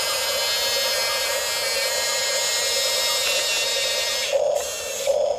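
Electric drive motors and gearboxes of a Huina 1554 1/14-scale RC bulldozer whining steadily, then stopping and starting in short bursts about four seconds in.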